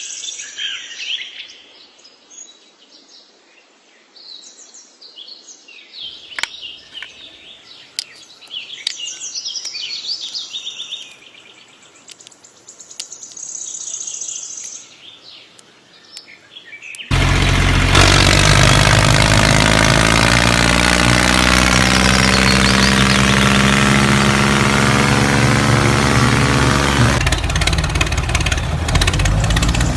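Birds chirping for the first half. About 17 s in, a loud, steady, engine-like drone starts abruptly and holds.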